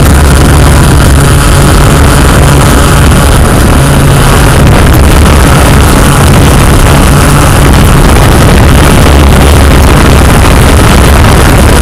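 Yuneec Q500+ quadcopter's motors and propellers running steadily in flight, a loud constant rush of propeller noise and wind with a low hum underneath, as picked up on the drone's own camera.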